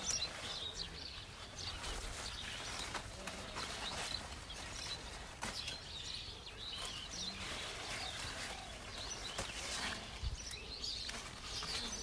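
Cucumber vine leaves rustling, with scattered crackles and snaps, as cucumbers are picked by hand, and faint bird chirps in the background.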